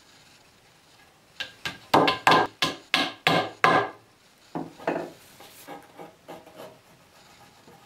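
A quick run of about eight sharp wooden knocks, roughly three a second, comes from the dowels and the pine board on the workbench, followed by a few softer knocks. Near the end there is faint squeaking and rubbing as a glue bottle is squeezed into the dowel holes.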